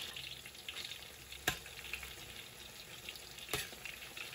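Starch-coated eggplant strips deep-frying in a wok of hot oil during their second, hotter fry: a steady crackling sizzle. A metal spatula stirs them, with two sharp knocks against the wok, about one and a half and three and a half seconds in.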